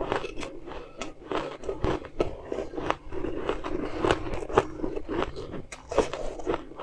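Close-up chewing and crunching of shaved ice in the mouth, a rapid irregular string of sharp crunches, with a metal spoon scraping into the ice in a steel bowl.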